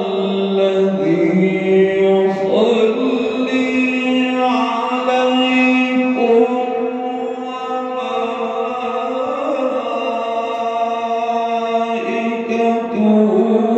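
A single voice chanting in long, held notes that step to a new pitch every second or two.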